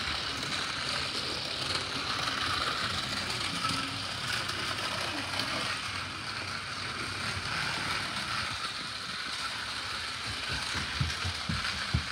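Battery-powered toy police car running along a flexible plastic race track, a steady whir of its small electric motor and plastic wheels rolling on the track segments. A few low thumps come near the end.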